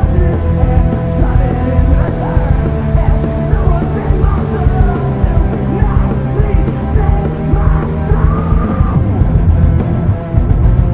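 Punk rock song with yelled vocals, sounding muffled and dull at the top as if played through a car's stereo, with a steady low rumble of driving underneath.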